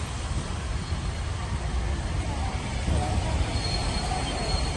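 Vintage train carriages rolling slowly past on the rails, a steady low rumble. About three and a half seconds in, a thin high wheel squeal sets in and holds.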